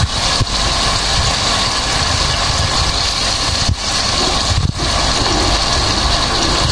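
Chicken wings and gizzards frying in hot oil in a pot: a loud, steady sizzle with a low steady hum underneath.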